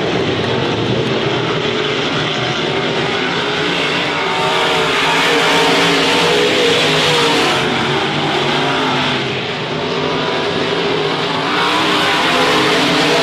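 IMCA modified dirt-track race cars racing, their V8 engines rising and falling in pitch as they accelerate and lift. The sound grows louder about four seconds in, dips briefly near ten seconds, then swells again.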